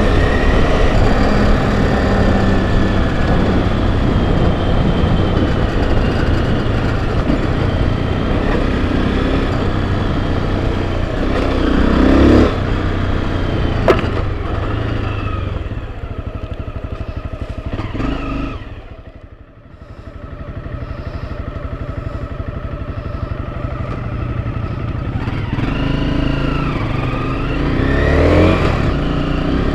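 Enduro dirt bike engine running under way on a trail, revs rising and falling with the throttle. About two-thirds through the engine note drops away briefly as the throttle is closed, then picks up again and revs climb near the end, with a couple of knocks along the way.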